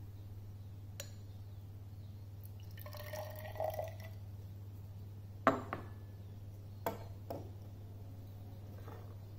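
Water poured from a glass beaker into a glass test tube for about a second, then several sharp glass knocks on wood as the beaker is set down on the bench and the tube is stood in a wooden rack, the first knock the loudest. A low steady hum lies underneath.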